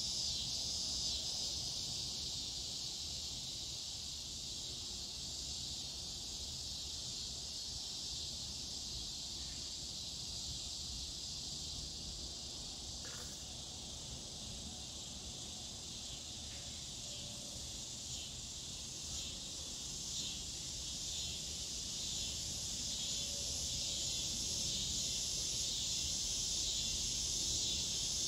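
Scissor grinder cicada (Neotibicen pruinosus) calling: a continuous high-pitched buzz that takes on a pulsing rhythm and grows louder over the second half.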